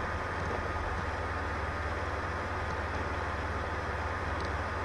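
Steady background noise: an even hiss with a low hum underneath and a thin, steady high whistle.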